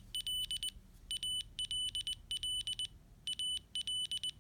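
Piezoelectric speaker of a homemade Morse code training device sending random words in Morse code: a high-pitched beep keyed in quick dits and dahs at about 20 words per minute, with short breaks between words about one and three seconds in.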